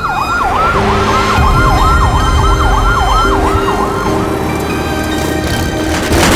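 Emergency-vehicle siren in a fast yelp, sweeping up and down about three times a second and fading out about four seconds in, over music. A sharp hit comes near the end.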